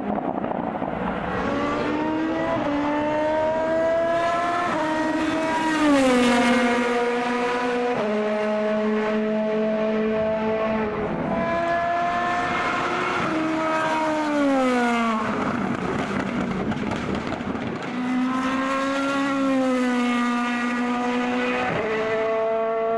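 Naturally aspirated V8 engines of Zytek LMP1 prototype racecars at full throttle, pitch climbing in steps through quick sequential upshifts. Twice the pitch sweeps down as a car goes past, then climbs again as the next run accelerates.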